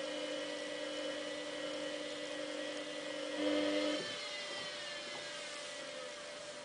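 Samsung WF8804RPA washing machine's motor whining steadily as it turns the drum to sense the size of the load, then winding down with a falling whine about four seconds in.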